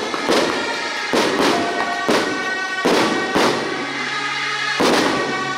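Firecrackers going off in loud, irregular bangs, about one or two a second, marking the auspicious moment of the ceremony. Temple band music with ringing tones runs underneath.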